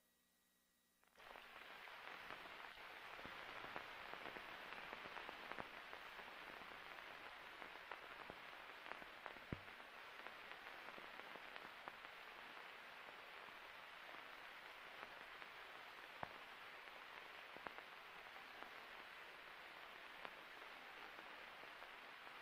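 Near silence: faint steady hiss with scattered clicks and pops, the surface noise of an old film print's soundtrack running with no sound recorded on it. The hiss starts about a second in.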